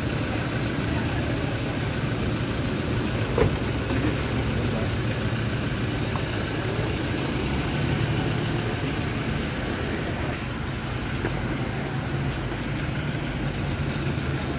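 Car engines running close by as a black SUV pulls away and another car rolls up. A single sharp knock about three and a half seconds in, like a car door shutting.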